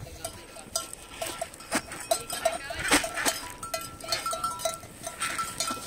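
A reindeer herd milling about and feeding on pellets in snow: a steady run of short clicks and ticks from the animals moving. A small bell rings on and off in the second half.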